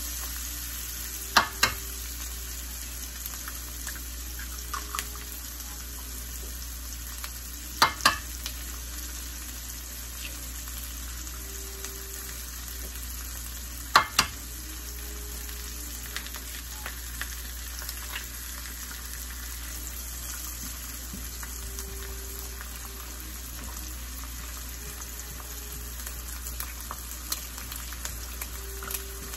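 Diced onions sizzling steadily in butter in a skillet. Sharp taps come three times, about six seconds apart, as eggs are cracked and dropped into the hot pan.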